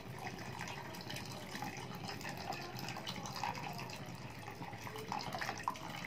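Water poured in a steady stream from a glass jug into an aluminium pressure cooker full of soaked chickpeas, splashing and gurgling on the chickpeas.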